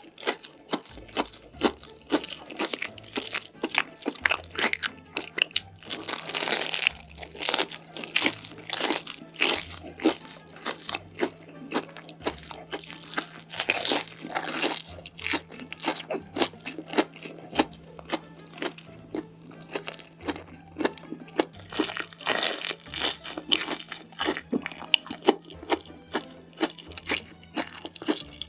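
Close-miked eating: crunchy bites and chewing, a dense run of sharp crackling clicks, with louder bouts of crunching about six, thirteen and twenty-two seconds in.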